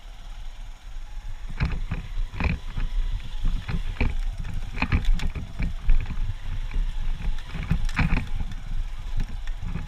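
Honda CG125 motorcycle ridden over rough ground: an uneven low rumble with many irregular knocks and rattles, starting to build about a second and a half in.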